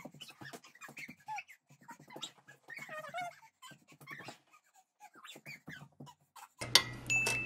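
A small child's wordless squeals and playful vocal noises mixed with bare feet slapping and thudding on the floor as he runs about. Near the end the sound changes to a steady low hum with one sharp knock, the loudest moment.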